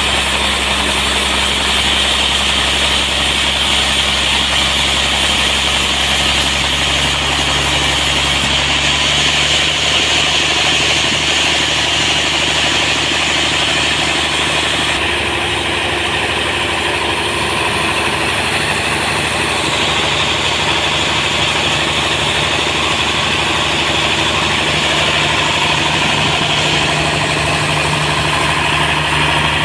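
Sawmill machinery running steadily, a loud even engine-like hum. Its tone shifts slightly a few times.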